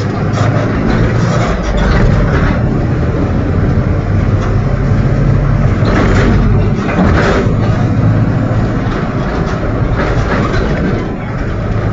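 Mercedes-Benz OF-1722M bus under way with a steady low drivetrain hum and the growl of its differential. A few brief rattles come through, the biggest about six to seven seconds in.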